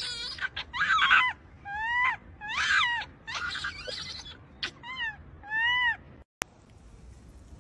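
Baby macaque crying: a string of about eight high, arched calls, each rising then falling in pitch. The calls stop about six seconds in, and a single sharp click follows.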